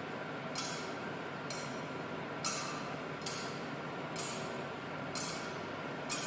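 Metal thurible (censer) swung on its chains, the chains and lid clinking about once a second, seven times, as the Gospel book is incensed, over a steady background hiss.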